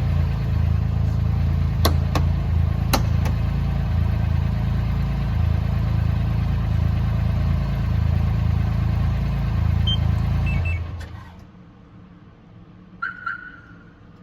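Polaris Ranger 1500 XD's three-cylinder engine idling after a remote start, with a couple of sharp clicks, then shutting off about ten seconds in. Two short beeps follow near the end.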